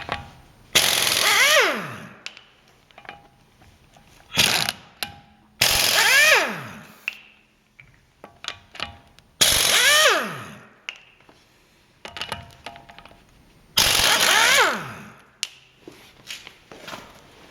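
Half-inch drive stubby air impact wrench run in five short bursts, hammering, with a whine falling in pitch as the tool winds down after each. Small metallic clicks and knocks come between the bursts.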